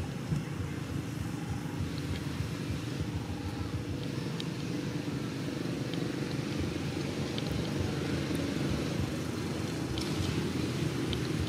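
Steady low rumble of motor-vehicle noise, with a few faint, scattered clicks.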